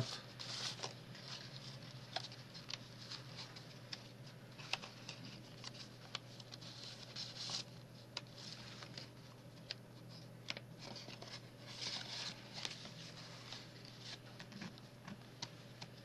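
Soft rustling, sliding and small taps of paper cards and envelopes being handled and turned, over a steady low hum.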